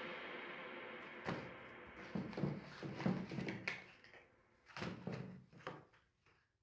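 Crushed cardboard matchboxes being handled and set down on a table, giving a scatter of light knocks and rustles. Background music fades out over the first second.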